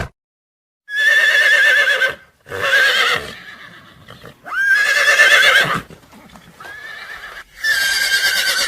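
An animal calling about five times in quick succession. Each call is a high, quavering cry with a shaking pitch, and the fourth call is softer than the others.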